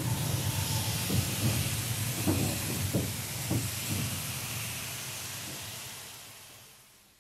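Post-1945 2-6-2 tank steam locomotive coming to a stop, heard from inside the train: a low rumble under a steady steam hiss, with several clunks between about one and four seconds in. The sound then fades away toward the end.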